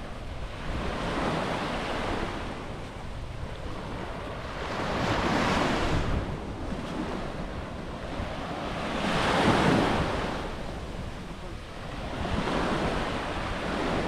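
Small waves breaking and washing up the beach, swelling and fading four times about every four seconds, with wind rumbling on the microphone.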